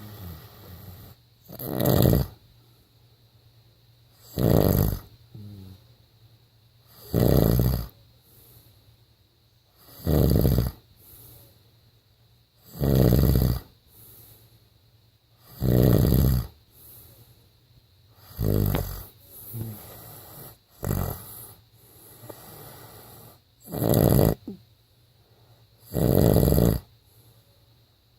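A man snoring in his sleep: loud rasping snores about every two and a half to three seconds, ten in all, with softer breaths between.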